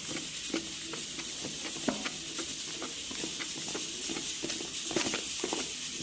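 A spoon stirring thick, sticky slime made of glue, detergent and toilet paper in a bowl, giving irregular wet squelches and clicks as the slime is being activated.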